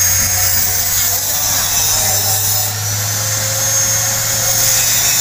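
Sport motorcycle engine running at a steady idle through an aftermarket Pro Liner slip-on racing exhaust, a constant, even drone with no revving.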